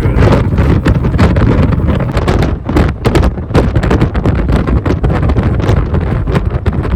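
Loud exhaust of a 1982 Ford F-150's 302 V8 through a 3-to-4-inch step exhaust while the truck is driven, with wind buffeting the microphone.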